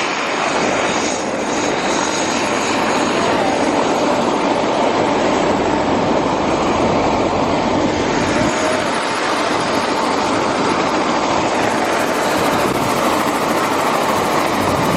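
Helicopter engine and rotor noise, loud and steady.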